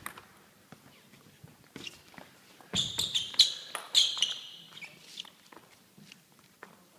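Sports shoes squeaking on a sports hall floor, loudest in a short cluster about three seconds in, among scattered light clicks of a table tennis ball being bounced and tapped.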